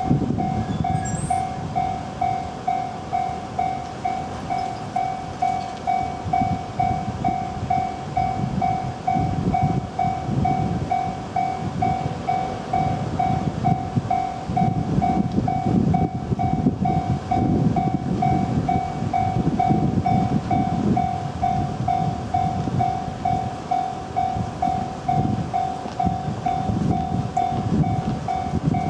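Japanese level crossing warning bell ringing continuously, a single-pitched electronic ding repeated about twice a second. Under it a Chuo Main Line train passes over the crossing with a heavy rumble of wheels on rail.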